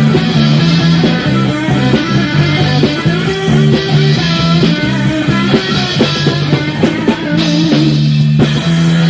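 Rock band playing an instrumental passage: electric guitar over held bass notes and drums, with cymbal crashes about every second and a half.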